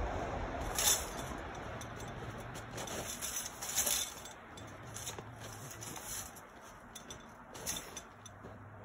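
A wire cage trap being handled, scraping and rustling over pine boughs and snow, with a few sharp metallic rattles, the loudest about a second in and just before four seconds.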